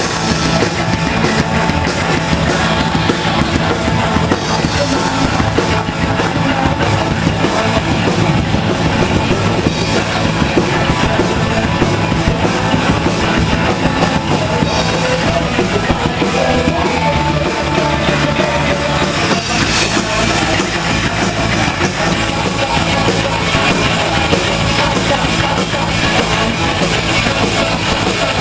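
A rock band playing live: drum kit and electric guitars, loud and steady with no singing heard.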